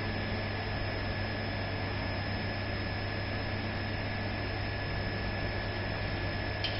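A 16 kW induction heater running while it heats a steel truck chassis rail: a steady electrical hum with a thin, constant high whine over a hiss. A faint tick sounds near the end.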